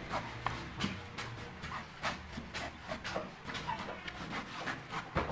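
A long knife slicing and shaving the green husk off a young coconut over a wooden chopping block: a run of short, irregular cutting and scraping strokes, a few a second.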